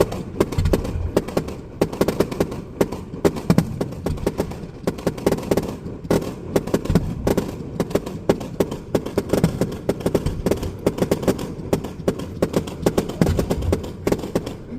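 Fireworks display: a rapid, unbroken barrage of bangs and cracks, several a second.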